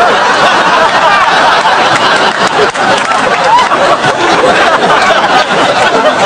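Many voices chattering and laughing at once, a steady dense babble with no single voice standing out.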